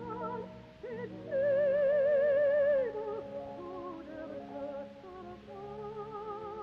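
Soprano voice singing a slow, solemn art song with wide vibrato. About a second in she holds one loud note for about a second and a half, over sustained instrumental accompaniment. It is an old radio recording with no high treble.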